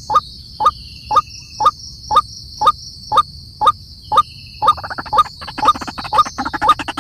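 An animal call repeated at an even pace, about two short calls a second, over a steady high-pitched insect drone. From about two-thirds of the way in, a second, faster run of calls joins, and everything cuts off abruptly at the end.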